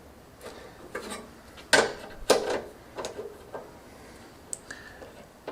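Screwdriver loosening the thumb screws on a PC case's expansion-slot covers: a few sharp metallic clicks and taps, the loudest two close together about halfway in, with a brief high squeak near the end.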